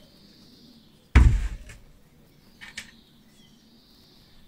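A large, full plastic jug of rust-remover liquid set down on a carpeted workbench: one heavy, dull thump about a second in, then a faint click a couple of seconds later.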